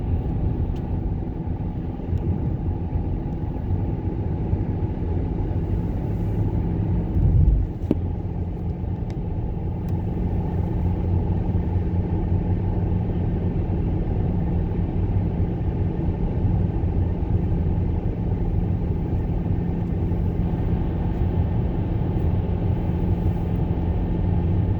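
Steady engine and road rumble inside a moving car's cabin, with one brief low thump about seven seconds in.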